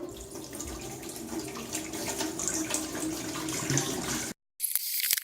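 Water running from a kitchen faucet into a sink, a steady hiss with small clicks and splashes, which cuts off suddenly about four seconds in.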